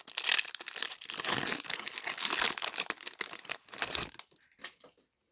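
Foil trading-card pack wrapper being torn open and crinkled, a dense crackling rustle for about four seconds that then dies away.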